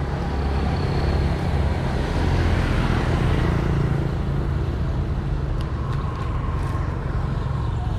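Motorbike engine running steadily while riding.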